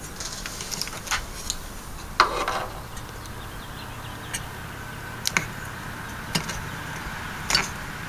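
Scattered clicks and scrapes of an AMD stock CPU cooler's metal retention clip and lever being worked onto the motherboard's plastic socket bracket, with a louder rattling scrape about two seconds in.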